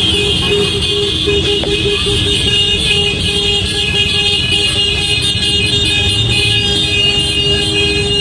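Road vehicle noise: a steady loud rumble with sustained high tones held above it.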